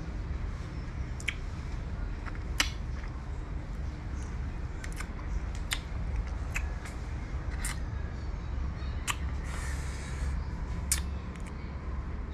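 A person chewing food close to the microphone, with a dozen or so sharp, irregular mouth clicks and lip smacks over a steady low background rumble.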